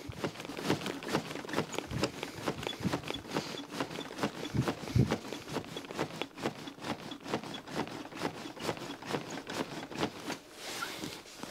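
Chest compressions on an Ambu CPR training manikin: a fast, even series of knocks and clicks.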